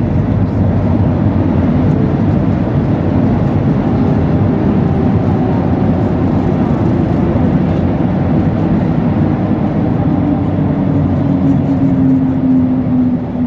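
Boeing 737-800 cabin noise: the steady rumble and rush of the CFM56 engines and airflow, with an engine tone slowly dropping in pitch in the second half as the engines wind down.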